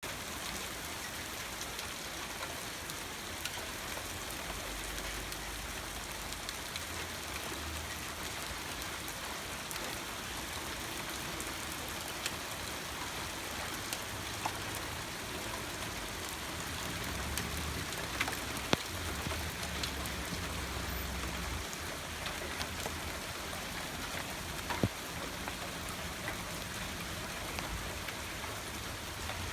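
Thunderstorm rain falling steadily, with scattered sharp drop hits and low rumbles now and then.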